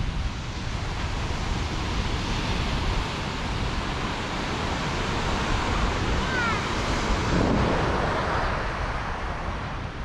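Ocean surf breaking on the shore, with wind rumbling on the microphone; the wash swells a little past the middle, and a couple of brief high chirps sound just before it.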